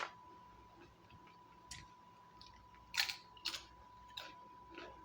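Close-up eating sounds: scattered wet mouth clicks and smacks of chewing, a handful over a few seconds, over a faint steady high-pitched whine.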